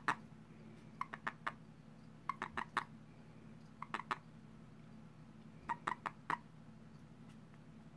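A handled male toad giving short chirping release calls: four quick bursts of two to five pulses, about one to two seconds apart. This is the call a male toad makes when gripped, a signal to let go.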